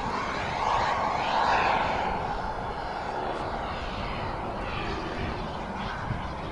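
A Kingtech K-160G2 turbine powering a TopRC Aspire model jet in flight makes a steady jet rush with a whine that glides in pitch. It swells about a second in, then slowly eases off as the jet moves away.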